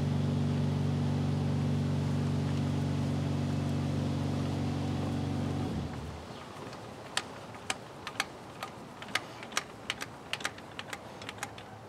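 A steady motor hum that cuts off suddenly about six seconds in. It is followed by a scatter of light metal clicks and taps as the socket of a hand-cranked torque multiplier is fitted over a truck lug nut.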